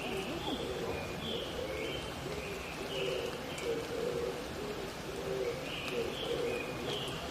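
Oriental turtle doves cooing in repeated low phrases, with a smaller bird giving short high chirps in two bursts, over a steady hiss of a wet forest after rain.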